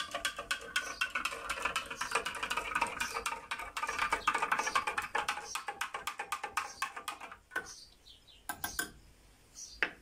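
Metal spoon stirring salt into water in a glass jar, clinking rapidly against the glass as the brine is mixed. The clinking stops about three-quarters of the way through, followed by a few single clicks.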